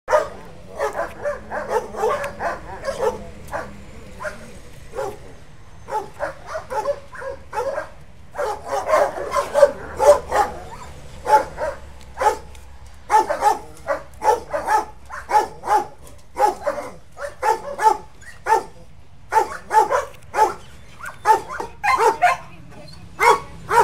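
A dog barking over and over: runs of short barks, two or three a second, with brief pauses between runs.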